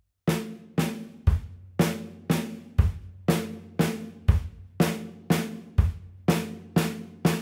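Snare drum and bass drum played slowly and evenly in a linear right-left-kick pattern: two snare strokes then a kick, four times over, at about two notes a second. Four single snare strokes follow to close the fill, and the kick drum's low ring hangs under the snare hits.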